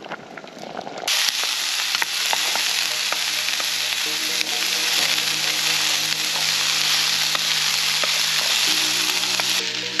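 Diced onions and carrots sizzling in a frying pan over a hobo stove while a spatula stirs them. The sizzle starts suddenly about a second in and then holds steady.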